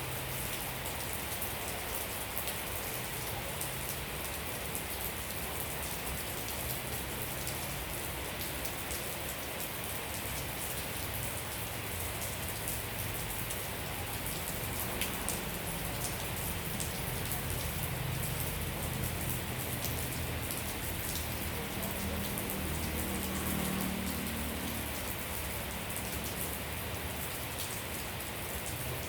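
Steady rain falling, with many small drops tapping on surfaces.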